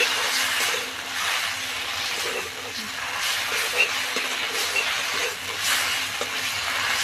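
Thick masala paste sizzling as it fries in oil in a metal kadai, while a wooden spatula stirs it and scrapes the pan in repeated strokes. This is the masala being fried down until the oil separates from it.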